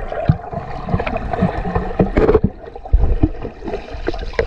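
Underwater sound from a camera held under the water of a swimming pool: muffled bubbling and gurgling with irregular low thuds as the swimmer moves.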